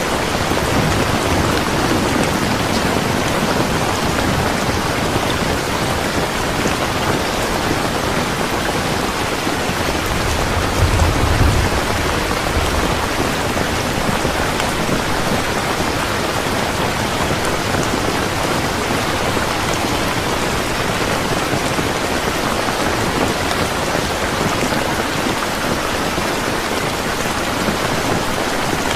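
Steady heavy rain falling on a surface, a dense even hiss of drops. A brief low rumble swells about eleven seconds in.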